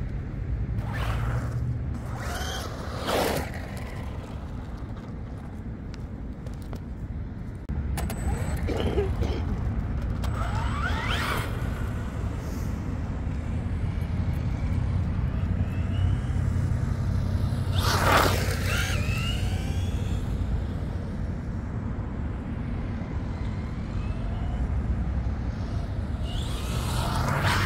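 Electric RC truck driving: its motor and drivetrain whine rises and falls in short bursts, about four times, over a steady low rumble of tyres on the ground. The rumble gets louder about eight seconds in.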